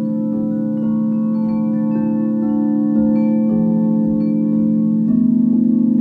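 Large frosted quartz crystal singing bowls ringing in long, overlapping sustained tones, with new notes struck in a few times.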